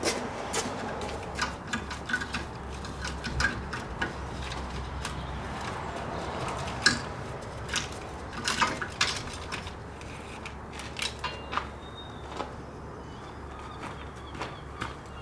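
Irregular metallic clinks and knocks of hand tools and car parts during work on a car's front end, with one sharper knock about halfway through.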